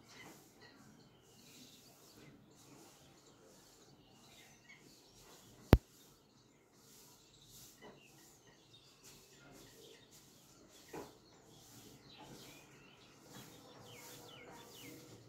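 Faint bird chirps over low steady background noise, broken by one sharp click a little under six seconds in, the loudest thing heard.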